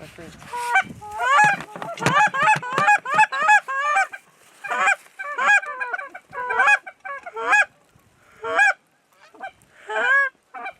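Canada goose honks and clucks: a rapid, overlapping run of calls for the first few seconds, then single honks about once a second.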